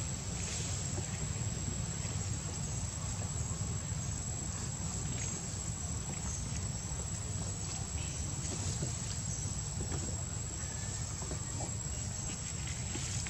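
Steady outdoor ambience: a high, constant insect drone over a low steady rumble, with a few faint clicks.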